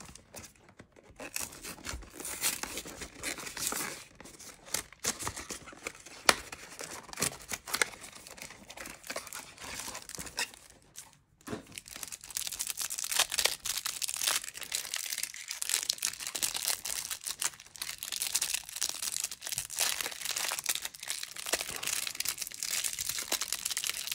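Clear plastic wrap crinkling and tearing as it is peeled off a stack of trading cards taken from a cardboard hanger box, a busy irregular crackle that grows denser about halfway through.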